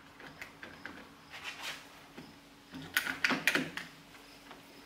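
One-handed bar clamp being fitted to a table edge and squeezed tight: scattered clicks and knocks of handling, with a quick run of sharp clicks about three seconds in.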